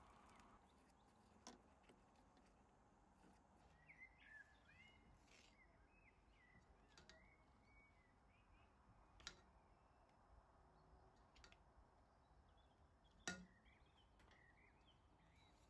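Near silence: faint room tone with scattered faint bird chirps and three faint clicks, the sharpest near the end.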